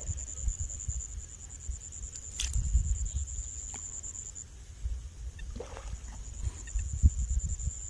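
A high, steady insect trill breaks off for about a second near the middle and then resumes. Under it are irregular low rumbles and buffeting on the microphone, with one sharp click a third of the way in.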